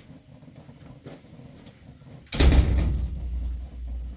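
A door opening with a sudden bang or scrape a little over two seconds in, followed by a loud low rumble.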